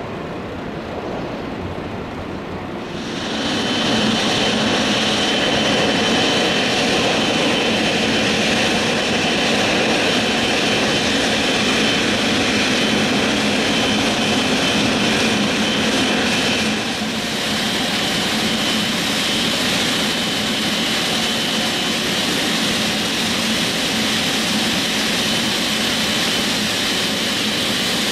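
Boeing 777-300ER's GE90 turbofan engines idling on the ramp: a steady jet roar with a high whine over it. It is quieter at first and louder from about three seconds in, and the whine fades about seventeen seconds in while the roar goes on slightly quieter.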